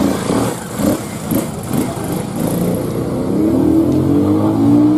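A motorcycle engine revving up, its pitch and loudness rising over the last two seconds, with street noise before it.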